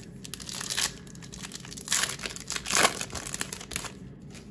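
Plastic trading-card pack wrapper being handled and crinkled, in a few short crackly bursts, the loudest just before three seconds in.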